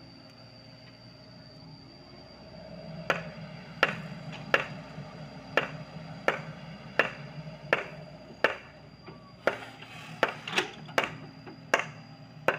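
Sany mini excavator running at a steady hum. From about three seconds in there is a series of sharp knocks, roughly one every 0.7 seconds.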